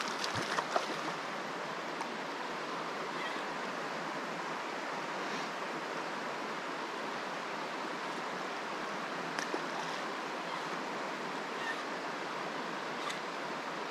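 Shallow rocky river running through pocket water and riffles: a steady rush of water, with a few faint short ticks now and then.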